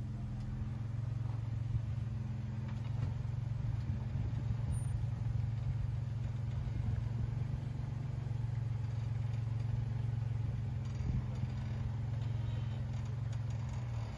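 Off-road vehicle's engine running steadily at low revs, a constant low hum that barely changes pitch.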